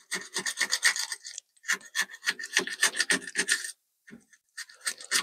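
Edge of a ruler scraped back and forth along the top of a steel bench vise jaw to clean it, in quick scraping strokes of about seven a second. The strokes come in three runs with short pauses between.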